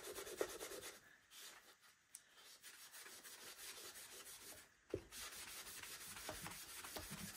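Magic eraser (melamine foam) rubbing back and forth on bare wood as pen writing is scrubbed off; faint, with a short lull or two and a light knock about five seconds in.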